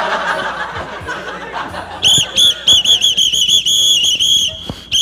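A whistle blown in a string of quick, short toots starting about two seconds in, with a briefly held blast near the end.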